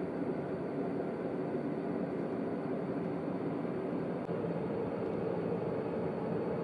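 Space-sound recording presented as the sound of Neptune: a steady, low rushing drone with a faint high tone above it, which the listener finds soothing and a little empty.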